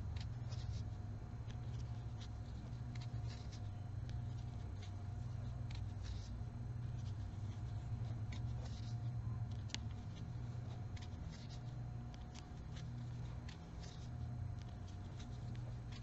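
Crochet hook working yarn: small, irregular clicks and scratches of the hook pulling loops through stitches, over a steady low hum.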